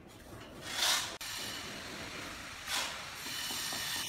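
Flat hand trowel scraping across a wet mortar bed, two smoothing strokes about two seconds apart, over a steady background hiss.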